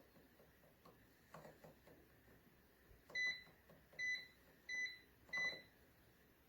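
Xiaomi Smart Air Fryer's electronic control panel beeping: four short, evenly spaced beeps less than a second apart, starting about halfway through, with a few faint soft knocks before them.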